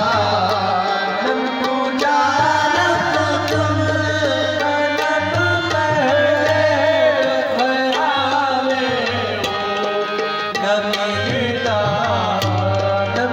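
Live qawwali music: tabla drumming under a wavering melody line, over a steady low hum.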